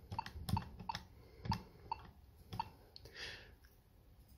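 Number keys on an Avaya J139 desk phone's keypad pressed one at a time as a phone number is typed in: six short, sharp clicks over about two and a half seconds.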